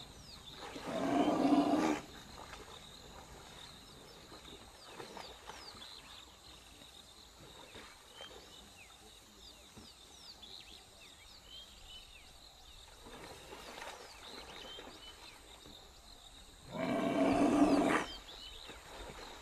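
A big cat roaring twice: two loud, drawn-out roars about a second and a quarter long each, one about a second in and one near the end. Faint short chirps of birds or insects sit in the background between them.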